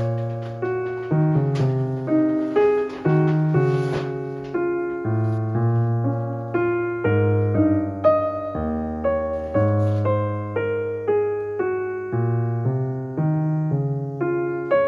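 Background piano music: a gentle run of chords and melody notes, each struck and fading.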